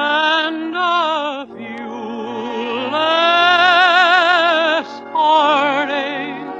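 Male tenor singing a slow ballad with heavy vibrato over musical accompaniment. It is two short phrases, then a long held note in the middle, then another phrase near the end.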